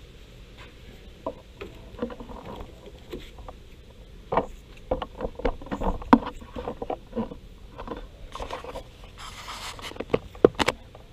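Hands handling and pressing scraps of Kevlar-carbon fiber fabric onto a foam part on a paper-covered table: irregular rustling, scraping and light knocks, busiest in the middle, with a louder rustle and two sharp clicks near the end.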